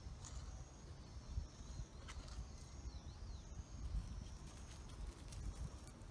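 Faint outdoor ambience: a low rumble with thin, high bird chirps, and a few soft taps and rustles from a small Maltese dog walking on dry grass with a paper bowl in its mouth.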